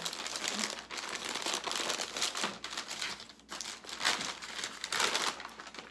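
Brown kraft paper bag crinkling and rustling in uneven spells as hands open it and rummage inside.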